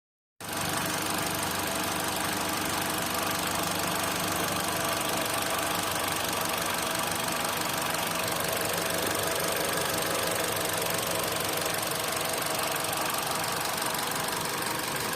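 Mitsubishi Lancer's four-cylinder engine idling steadily, starting abruptly about half a second in.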